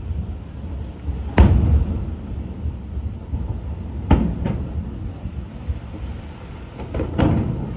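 Aerial firework shells bursting. A loud boom comes about a second and a half in, two more bangs follow around four seconds, and another pair comes near the end, each trailing off in a low rumble.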